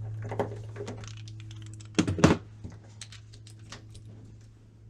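Two sharp knocks a quarter-second apart about two seconds in, with a fainter knock near the start and a few light ticks later, over a steady low hum.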